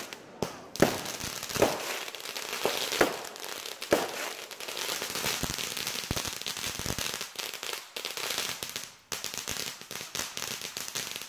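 Fireworks going off: a few sharp bangs in the first four seconds, then a dense run of crackling pops.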